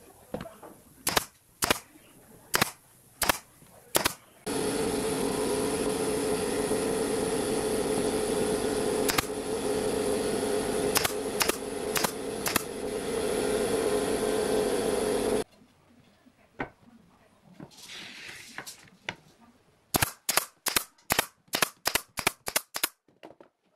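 Pneumatic brad nailer driving nails into pine boards: sharp single shots, about six in the first few seconds, a few scattered later, and a quick run of about ten near the end. A loud steady machine drone runs under the shots for about eleven seconds in the middle and cuts off suddenly.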